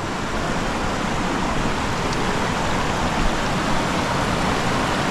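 Shallow rocky river rushing over stones and small rapids: a steady, even rush of water.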